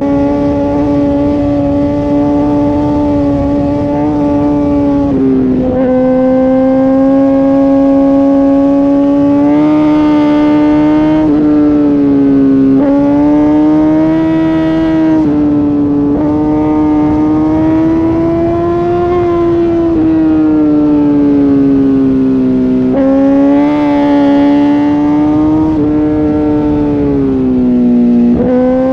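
Inline-four sport-bike engine running hard at high revs under the rider. Its pitch climbs and drops sharply several times as gears change and the throttle opens and closes.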